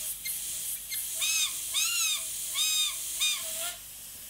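Iwata CMC Plus Micron airbrush hissing as it sprays. Over it, from about a second in, come four short whistle-like squeaks, each rising then falling in pitch, from an unidentified source.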